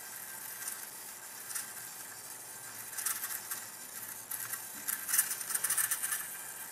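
Faint rustling and light clicks of fingers handling the small plastic and wire parts of a micro RC helicopter's tail, pressing the tail motor's quick-disconnect plug together. The handling gets busier in the second half.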